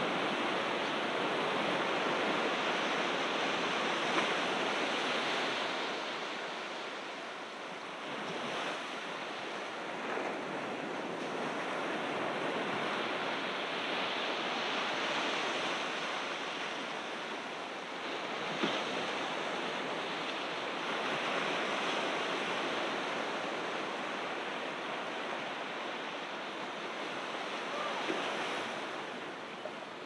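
Ocean waves breaking and washing up on a beach: a steady rush of surf that swells and eases every several seconds.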